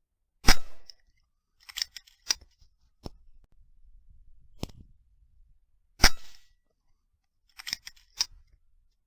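Two suppressed rifle shots, each a sharp crack, about half a second in and again about six seconds in. After each shot comes a pair of quick metallic clicks as the bolt is cycled to reload.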